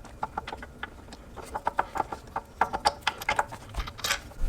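Ratchet and 17 mm socket clicking in short, irregular strokes as a hub-assembly mounting bolt is worked loose in a cramped spot, with light metal clicks and clinks.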